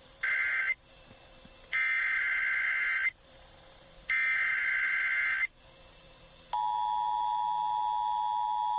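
Emergency Alert System header over FM radio: three bursts of screechy digital data tones, the first short and the others about a second and a half each, with a second's pause between them. About six and a half seconds in, the EAS two-tone attention signal starts, a steady harsh dual tone announcing a new tornado warning.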